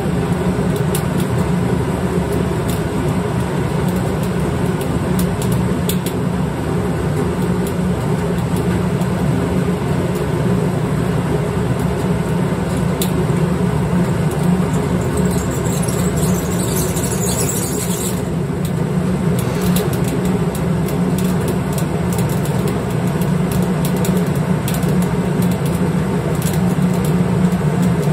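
Motor-driven grain mill running steadily as it crushes malted grain fed from the hopper, a continuous low mechanical drone.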